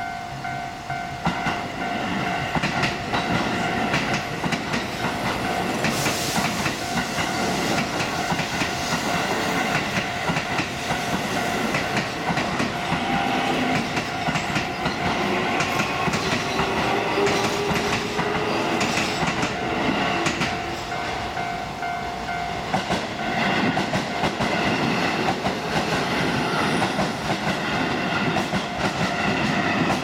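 Japanese level-crossing alarm ringing its steady repeating electronic bell while Keio Line electric commuter trains rumble past over the crossing, wheels clattering on the rail joints. Partway through, a train's motor whine glides up and down in pitch.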